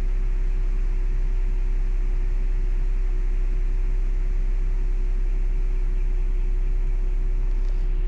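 Steady deep rumble and hiss inside a stationary car's cabin, with one constant hum: the engine idling and the ventilation fan running.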